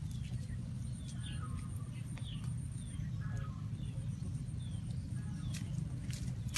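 Birds chirping in the background, short falling chirps repeated every half second or so over a steady low rumble, with a couple of sharp crackles from the small wood fire near the end.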